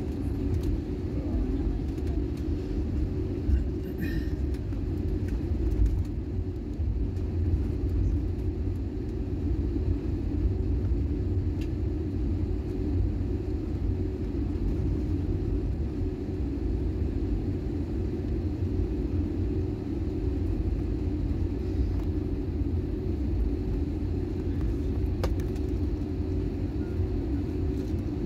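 Steady low rumble inside the passenger cabin of an Airbus A320-family jet airliner taxiing on the ground, its engines running at taxi power.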